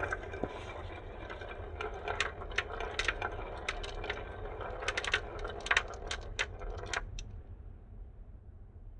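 Marbles rolling down a marble run track, a steady rolling rattle broken by sharp clacks as they hit the track and each other. It stops abruptly about seven seconds in, leaving only a faint hiss.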